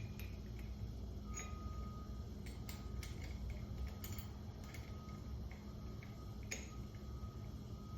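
Faint, irregular metal clicks and ticks as screws are run in to fasten the welding positioner's jaws to its plate, over a steady low hum.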